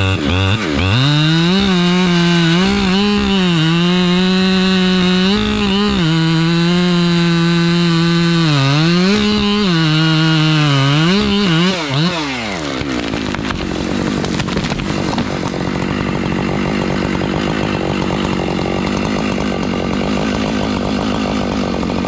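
Chainsaw cutting into a large pine, its engine held at high revs and bogging down repeatedly as it loads in the wood. About twelve seconds in the revs drop sharply, and a lower, rougher, steady running noise carries on.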